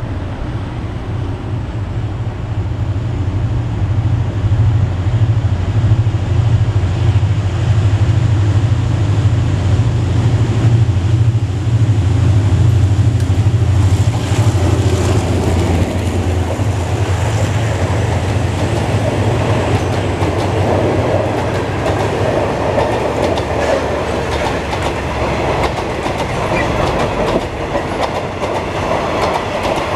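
Diesel locomotive passing close with its engine running in a heavy low drone, then a train of passenger coaches rolling by, wheels clicking and rattling over the rail joints. The engine drone fades about halfway through as the coaches take over.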